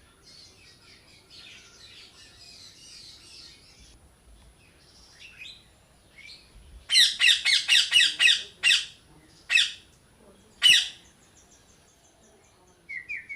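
A parrot squawking: a rapid run of about eight harsh squawks lasting a couple of seconds, then two single squawks about a second apart. Faint chattering of other birds sits underneath, and a short whistled call comes at the very end.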